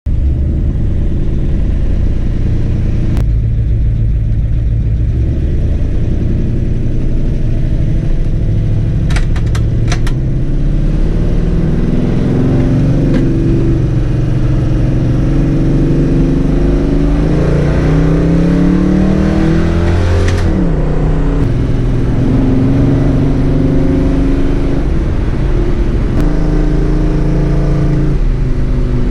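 Ford 351 Cleveland V8 of an XC Falcon driving on the road. Its engine note climbs in steps as the car accelerates through the gears, then drops away about two-thirds of the way in.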